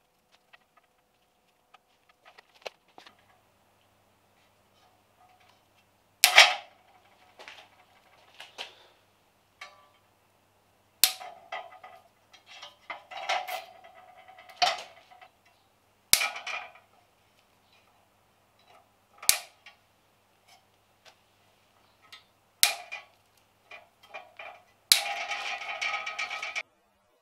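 Sharp metal knocks and clicks from painted cast-iron brake calipers and carriers being handled and taken down from a hanging metal strap. There are about seven loud knocks spread a few seconds apart, and near the end a clattering rattle that lasts about a second and a half and then stops suddenly.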